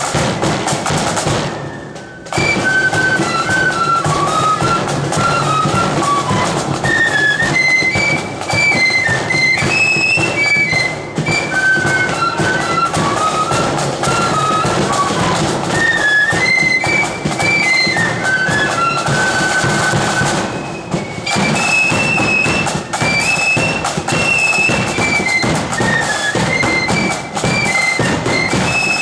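Blood-and-thunder marching flute band playing a tune: a unison flute melody over bass drum and side drums, heard from among the players. The playing breaks off briefly about two seconds in and again around twenty-one seconds, then picks up again.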